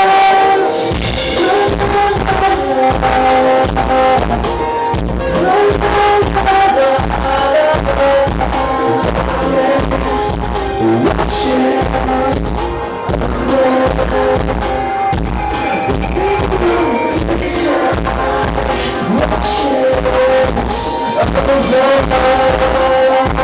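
A live band playing a song: a male singer over a steady kick-drum beat of about two a second and sustained held notes.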